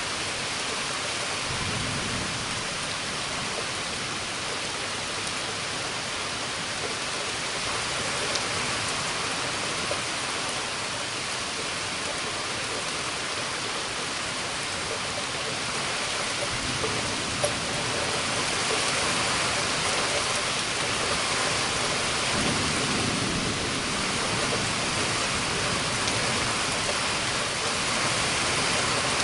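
Steady heavy rain in a summer thunderstorm, with a few low rumbles of thunder; the rain grows a little heavier about two-thirds of the way through.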